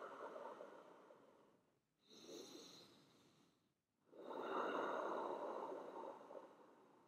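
A person breathing audibly and slowly: a breath fading out at the start, a short breath about two seconds in, and a longer, steady breath from about four seconds in.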